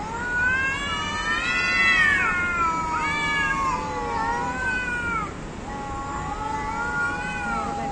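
Two cats yowling at each other face to face: long, wavering wails that rise and fall in pitch, the two voices overlapping during the first couple of seconds, with a long, lower, drawn-out wail in the second half.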